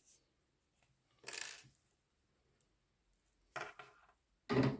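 Quiet handling sounds: two short scrapes about two seconds apart, with a faint tick between them, as cotton thread is pulled through a small crocheted piece hanging on a metal carabiner clasp.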